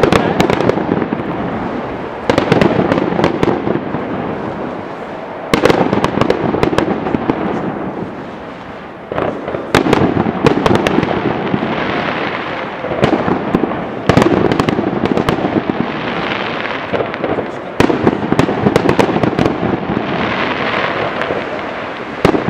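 Consumer fireworks cake (a multi-shot battery) going off: dense crackling and popping shots, with a fresh loud volley starting every three to four seconds.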